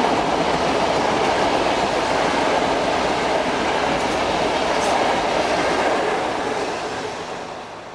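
Passenger coaches rolling past, a steady rumble of wheels on rail that fades out near the end.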